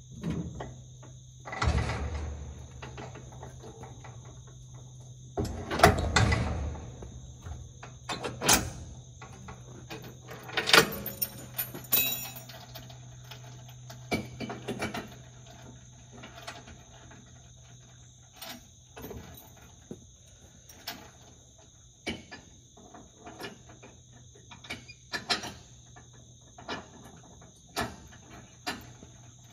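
Metal clanks, knocks and rattles of trailer hitch hardware being worked at a pickup's ball hitch, with the heaviest clunks about 2 and 6 seconds in and lighter clicks and taps after. Insects drone steadily behind.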